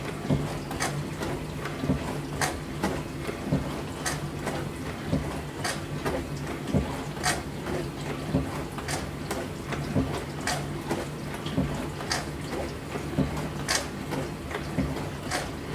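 Dishes, cutlery and glasses clinking and clattering: irregular sharp clinks, about two or three a second, over a steady low hum.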